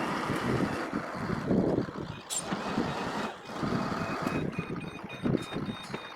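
Backhoe loader's diesel engine working, its noise rising and falling with the load, while a reversing alarm beeps repeatedly. A brief sharp click comes a little over two seconds in.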